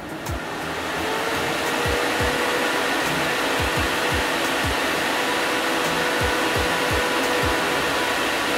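8-inch Vortex S-Line inline duct fan starting up: a rush of air builds over the first second or so as the fan winds up to speed, then runs steadily with a thin, even whine over the airflow.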